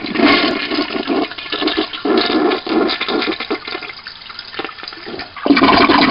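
Toilet flushing: water rushing through the bowl in uneven surges, with a strong fresh surge about five and a half seconds in.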